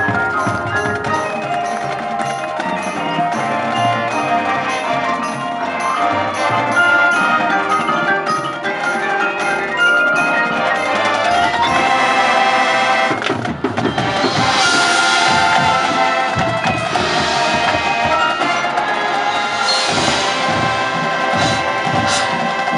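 Instrumental music led by mallet percussion, bells and xylophone-like notes with wood block, keeping a regular beat. From about halfway the music grows fuller and brighter.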